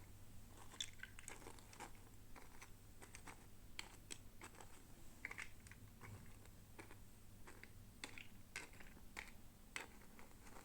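Faint, irregular clicks and crackles of plastic toy packaging and parts being handled during a doll unboxing.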